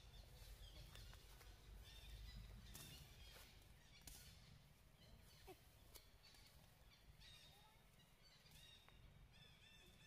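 Near silence: faint outdoor ambience with soft rustling and a few thin, high, brief chirps over a low rumble.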